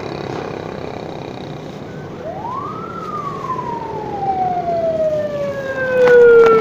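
A siren wailing once over street noise: it rises quickly in pitch, then slides slowly down for several seconds. Near the end a burst of close rustling and knocks is the loudest sound.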